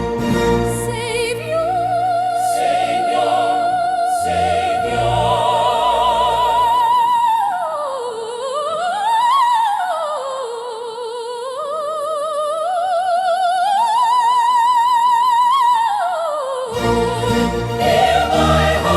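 Hymn music: a high solo line with strong vibrato holds long notes and slides through a winding phrase, while the low accompaniment drops away midway. The fuller arrangement comes back in near the end.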